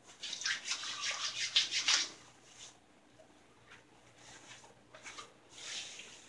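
Hands rubbing Florida water aftershave splash onto the face and neck: quick wet rubbing strokes for about two seconds, then quieter, with a short burst of rubbing again near the end.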